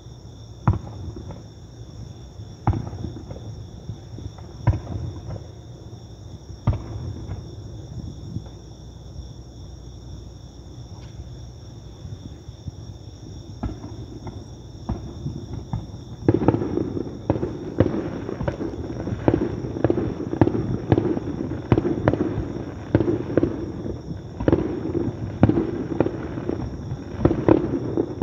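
Fireworks going off over the harbour: single sharp bangs about every two seconds at first. From a little past halfway they turn into a dense, louder volley of rapid bangs and crackling. A steady high insect trill runs underneath.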